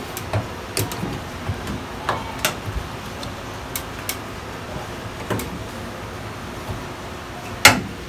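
Hands working the rubber door boot of a front-load washing machine onto the sheet-metal rim of the front panel's door opening: scattered small clicks and taps of rubber against metal, with one louder knock near the end.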